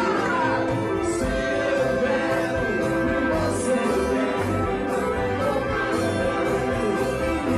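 Live rock band playing, with a horn section and a male lead singer on a microphone.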